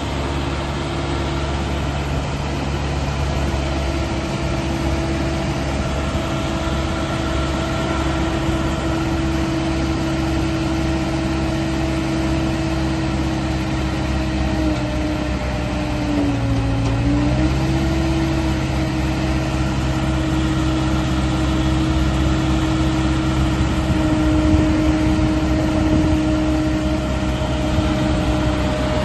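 Merlo P40.17 telehandler's diesel engine running steadily with a steady whine as the boom is worked out and back in; about halfway through the pitch dips briefly, as under load, then settles again.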